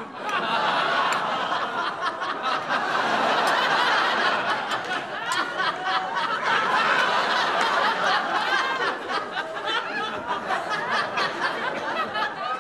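Studio audience laughing: a sudden, long swell of laughter from many people.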